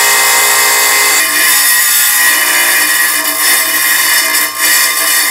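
Rotary power carving tool grinding into jade: a steady motor whine under gritty, high-pitched grinding noise. About a second in the pitch of the whine changes, and in the second half the grinding noise rises and falls unevenly.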